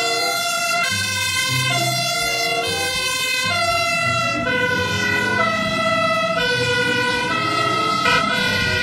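Fire engine's two-tone siren, switching between a high and a low note about every three quarters of a second as the truck drives along the road.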